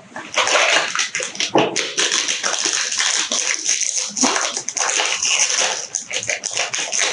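Foil inner pouch of a Pocky box crinkled and torn open by hand, after the cardboard box is opened: a dense, continuous crackling rustle of packaging.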